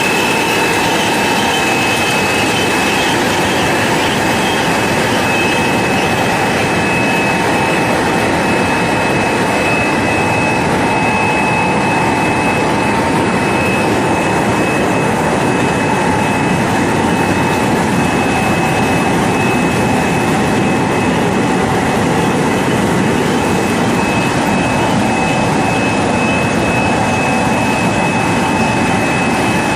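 Industrial air-bubble vegetable washing machine running steadily: a continuous mechanical rush with a steady high whine over it.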